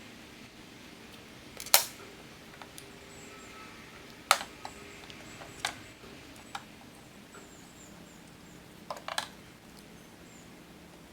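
A handful of separate sharp clicks and knocks over several seconds, with quiet between them; the loudest comes nearly two seconds in and a quick double knock comes near the end.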